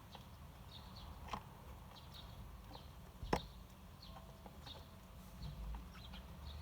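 Eurasian tree sparrows giving short, faint chirps on and off, with two sharp taps, the louder about three seconds in.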